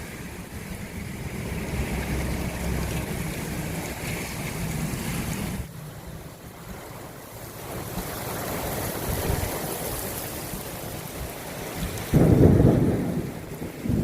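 Rain with wind blowing on the microphone, a steady rushing noise that changes abruptly about halfway through. A loud, low surge of noise comes about 12 seconds in.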